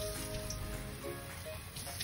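Sink tap water running into an open can of black beans as they are rinsed and drained, under background music with sustained notes.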